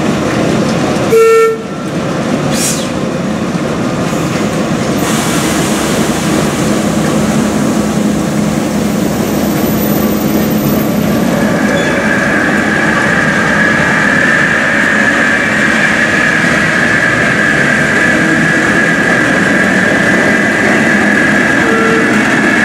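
Heritage diesel locomotive working a train, with a short, loud horn blast about a second in and a steady running drone throughout. From about halfway a steady high whine joins in, and a brief horn note sounds near the end.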